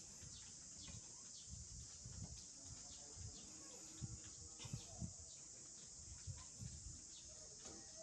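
Faint, steady high-pitched insect drone, with soft low thumps now and then.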